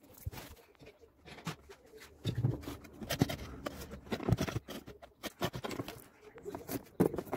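Handling noise from an electric blender's plastic base and parts being moved about: irregular clicks and knocks, with a few louder dull thuds.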